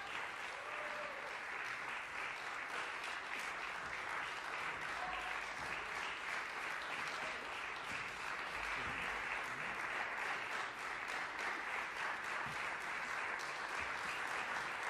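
Concert audience applauding: many hands clapping in a dense, steady patter.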